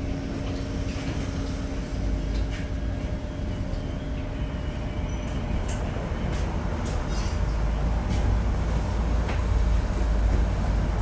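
Interior of a moving Frankfurt R-type low-floor tram: a steady running rumble from wheels on rail, with scattered short clicks and knocks. A steady hum dies away about three seconds in.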